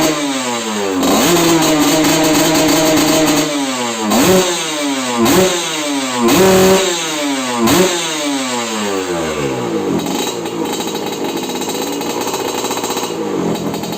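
Two-stroke Kawasaki Ninja 150 single, built for a raspy 'ngorok' exhaust note. It is held at raised revs, then blipped sharply four times, each blip rising quickly and falling away. After that the revs drop back to a steady idle.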